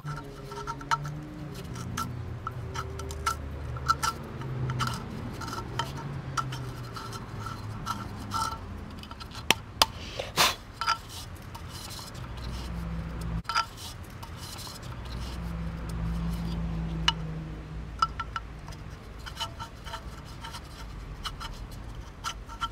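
Hard plastic parts of a Jandy variable-speed pool pump clicking, tapping and rubbing against each other as they are handled and fitted together, with a burst of sharper knocks about ten seconds in. A low hum rises and falls underneath.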